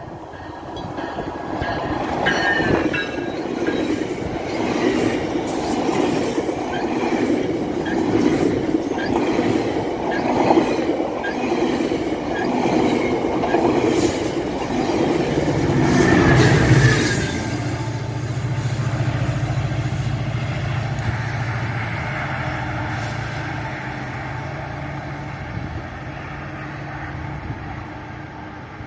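GO Transit bilevel passenger train passing at speed, its wheels clicking steadily over the rail joints. About two-thirds of the way through, the MP40PH diesel locomotive pushing at the rear goes by, and its engine's steady low drone fades away as the train leaves.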